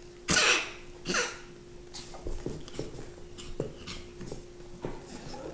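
A Pomeranian and a Chihuahua puppy play-fighting, making dog play noises: two louder bursts in the first second and a half, then short softer sounds every half second or so. A faint steady hum sits underneath.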